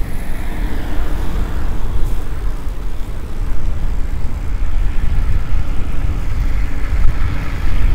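Road traffic noise and wind on the microphone of a moving road bike: a steady low rumble, with a broader rush near the start and again near the end as traffic goes by.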